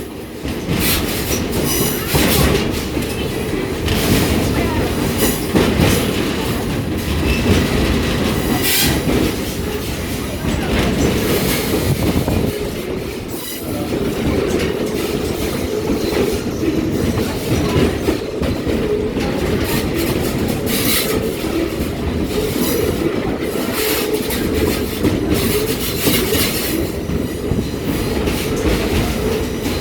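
A passenger train rolling steadily along the track, heard from aboard a railroad car: a continuous, loud running noise of wheels on rails.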